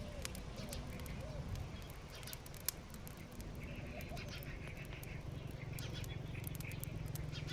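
Outdoor rural ambience: short repeated bird calls early on and a patch of higher chirping in the middle, with scattered sharp clicks and taps over a steady low rumble.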